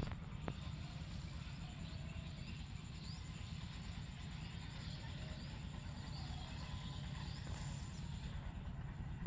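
Rural outdoor ambience: small birds chirping in short, repeated calls over a steady high insect trill, with a continuous low rumble underneath.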